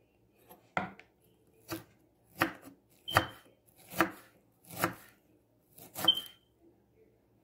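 Kitchen knife chopping carrot sticks on a plastic cutting board: about seven separate, unhurried cuts, roughly one a second, two of them leaving a brief high ring.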